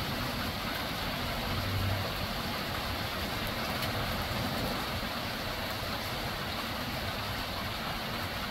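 Heavy hail coming down steadily: a dense, even hiss of hailstones striking the ground, deck and roofs, with a low rumble underneath.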